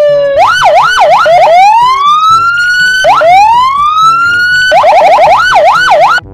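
Electronic police car siren cycling through its tones: a short falling tone, a run of quick up-and-down yelps, two long rising wails, then quick yelps again, cutting off suddenly just before the end.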